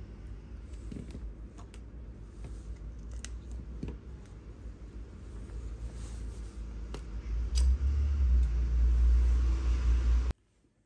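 Scattered light clicks and taps from handling small phone parts and a plastic glue tube at a workbench, over a low rumble that grows much louder in the last few seconds and then cuts off abruptly.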